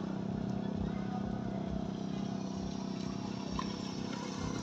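A motor running steadily: a constant low hum with uneven low rumbling beneath it.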